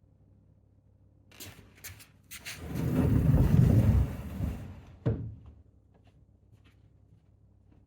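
A room door being handled: a few clicks, then a rattling rush lasting about two seconds, and a single knock.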